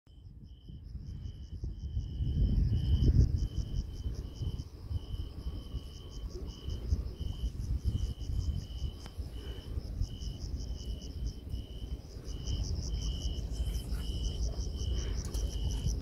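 Crickets chirping: one chirp repeating evenly about twice a second, with a higher, faster pulsing chirp above it, over a low rumble that is loudest about two to three seconds in.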